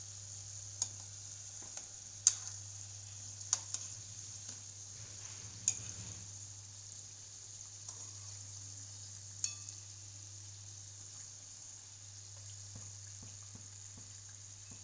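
Samosas deep-frying in hot oil in a steel kadhai, a steady sizzle, with a metal slotted spoon clinking sharply against the pan about five times in the first ten seconds as they are turned. A low steady hum runs underneath.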